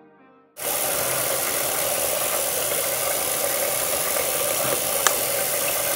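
Bathroom faucet running steadily into the sink, starting abruptly about half a second in. A single sharp click about five seconds in.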